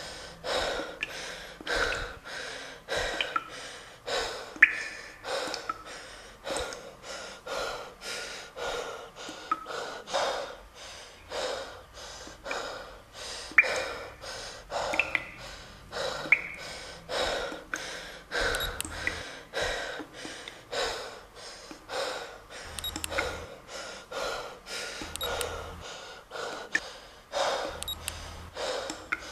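A person breathing hard and fast in gasps, about two breaths a second, without a break, like panicked panting.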